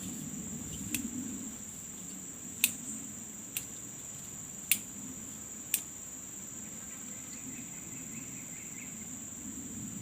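Steady high-pitched chorus of insects buzzing in a swamp, broken by five sharp clicks spread over the first six seconds.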